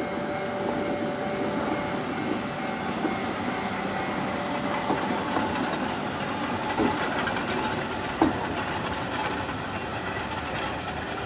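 Three coupled EF63 electric locomotives rolling slowly past at close range: a steady rumble of wheels and running gear on the rails with a faint hum. A single sharp knock sounds about eight seconds in.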